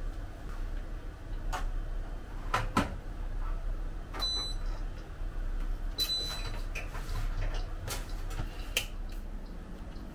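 Light clicks and taps of kitchen items being handled, with two short, high-pitched ringing tones about four and six seconds in.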